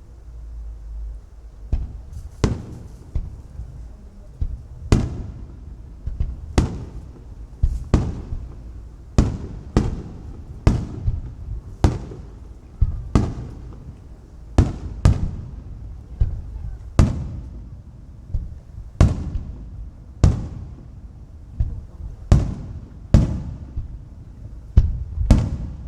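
Aerial firework shells bursting in quick succession: sharp booms about once a second, each with a short fading rumble, starting about two seconds in after a low rumble.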